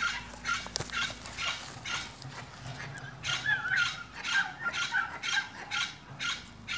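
An animal's rapid, rhythmic sounds: short hissy pulses about two to three a second, some with a faint squeaky tone.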